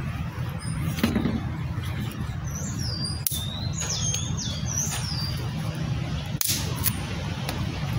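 Sharp snaps and clicks of thin dry sticks being broken and handled over smouldering embers, several in all, the loudest about a second in, about three seconds in and near the end. A bird chirps a few short calls in the middle.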